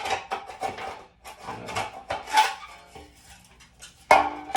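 Steel drywall taping knives clinking and clattering against each other as they are handled. The clanks come irregularly, with a ringing clank near the end.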